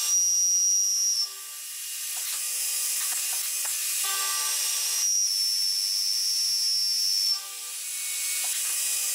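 Milling machine cutting a slot dry with an end mill, the spindle running steadily with a high whine that comes in at the start and again about five seconds in, with a few light ticks between.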